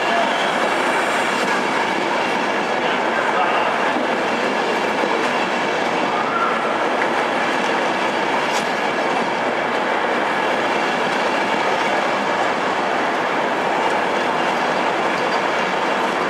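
Mark 4 coaches of an East Coast InterCity 225 train running past close by along the platform: a steady rolling noise of wheels on rail, with a faint click of the wheels over the track about eight seconds in.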